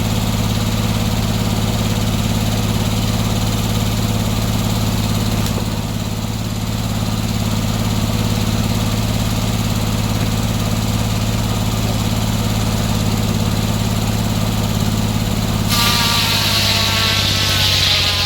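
Gas engine of a circular sawmill running steadily at speed. Near the end, the skip-tooth blade (24 inserted teeth) starts cutting into the log with a sudden loud, high rasping whine, and the engine note drops under the load.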